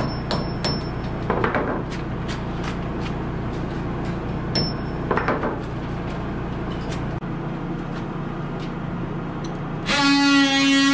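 Scattered light knocks and clicks with a couple of short squeaks, over a steady low hum that fades about seven seconds in. Acoustic guitar music starts just before the end.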